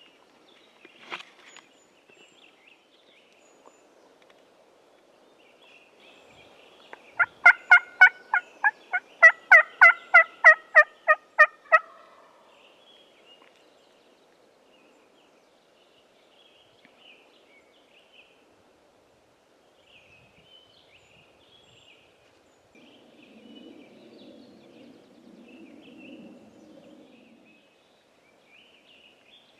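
Turkey yelping: a loud run of about sixteen quick, evenly spaced calls over roughly five seconds. A faint low rumble follows later.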